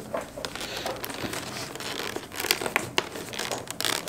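A cardboard advent calendar door being pried open by hand, its packaging crinkling and crackling in irregular bursts of sharp little clicks.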